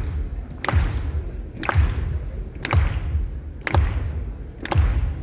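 Live band playing loud through a concert PA, recorded from the audience: a slow, heavy beat with a deep drum thump and a sharp crack about once a second over a low bass rumble.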